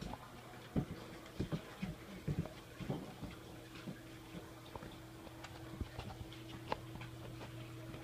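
Irregular taps, clicks and knocks, most of them in the first three seconds and sparser after, as a raccoon and pit bull dogs scramble about on a tile floor. A steady low hum runs underneath.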